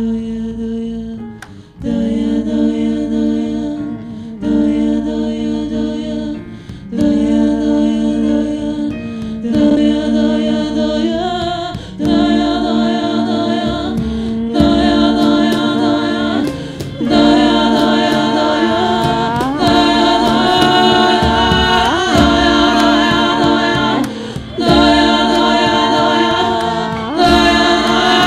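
Vocal music: voices singing long held notes in phrases of about two and a half seconds, each ending in a brief break, some notes bending at the end. It grows louder after the first few phrases.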